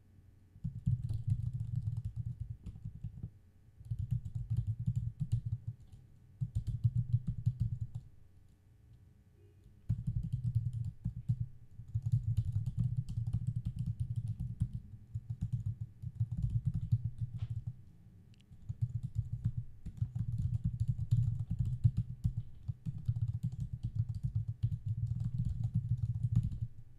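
Typing on a computer keyboard: runs of rapid key clicks broken by short pauses, with a longer pause about a third of the way in.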